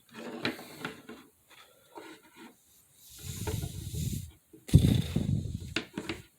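Growling and hissing of a lion and tiger fight, in irregular bursts with short gaps; the loudest burst comes about three quarters of the way in.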